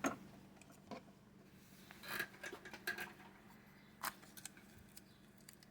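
Hobby knife (X-Acto) blade cutting and scraping clear plastic laminate: faint, scattered short scratches and clicks, the clearest about two seconds in and again about four seconds in.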